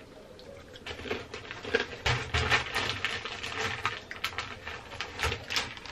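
Plantain chips being handled and crunched: quick, irregular crisp crackles that thicken about two seconds in.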